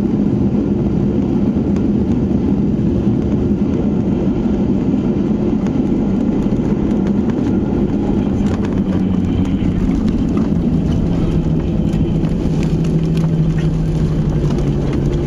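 Boeing 737-800 cabin noise during landing: a steady roar of engines and airflow. Around halfway through, the engine tone settles lower, and light rattles come through in the second half.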